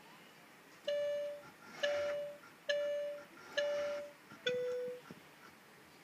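A run of five short, bell-like electronic tones, about one a second, each fading quickly; the last is a little lower in pitch.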